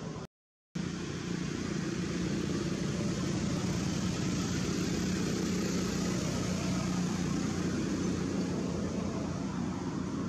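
Steady background noise with a low, even hum running under it, like distant engine or traffic noise. Near the start the sound drops out to dead silence for about half a second, then resumes unchanged.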